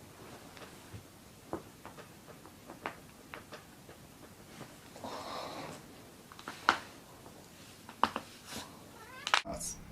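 Joints cracking during chiropractic adjustments: scattered sharp pops and clicks, the loudest about two-thirds of the way through and again a little later, with a brief rush of noise a little past halfway.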